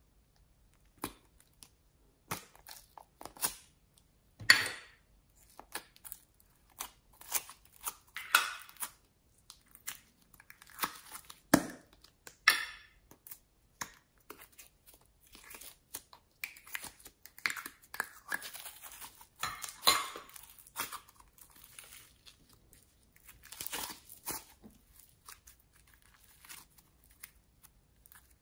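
Hands working a plastic toy container and the foam clay inside it: irregular clicks as the plastic parts are pulled and twisted apart, and soft crackling and tearing as the beaded foam clay is pulled out and broken apart. The loudest clicks come about four and a half seconds in and near twenty seconds.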